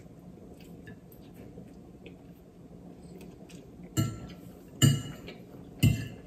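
Metal fork clinking and scraping against a ceramic dinner plate while twirling pasta. Faint small clicks for the first few seconds, then three sharp clinks in the second half.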